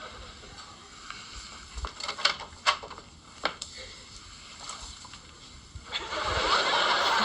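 A few soft clicks and rustles, then a studio audience breaking into laughter about six seconds in.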